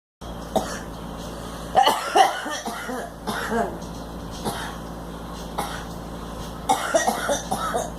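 A girl coughing: a bout of several coughs about two seconds in, a few single coughs, and another bout near the end, over a steady low hum.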